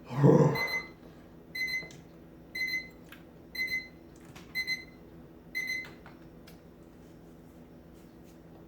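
An electronic alarm beeping, one short high beep about every second, stopping about six seconds in. A brief loud vocal sound from the man at the start, the loudest moment.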